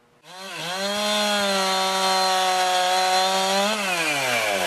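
A chainsaw engine revs up and holds a steady high speed for about three seconds, then its pitch falls steadily as the throttle is released and it winds down.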